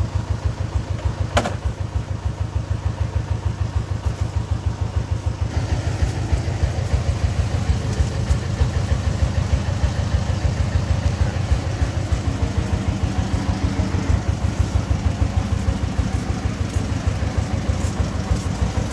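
Single-cylinder horizontal diesel engine of a công nông three-wheeled farm truck idling, a steady chugging at about five beats a second. A single sharp click about a second in.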